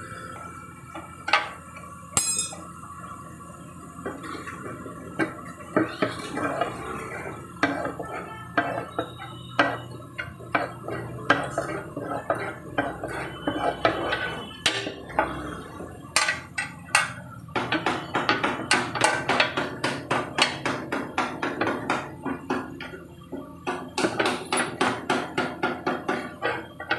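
Metal clinking and knocking as a 10 mm square iron bar is bent by hand into a scroll around the pins of a steel bending jig, with the bending fork and bar striking the pins and the steel table. About two-thirds of the way in, the knocks turn into a fast run of several clinks a second.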